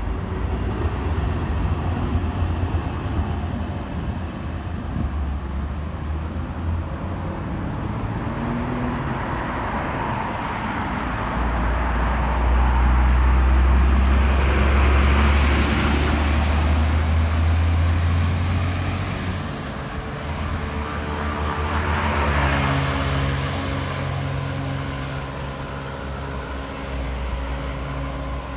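Urban street traffic with motor vehicles passing. A deep engine rumble swells to its loudest in the middle as a heavy vehicle goes by, with a short hiss about two-thirds of the way in.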